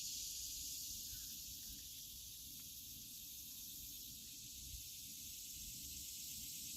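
Faint, steady high hiss over a low rumble: background noise with no distinct event.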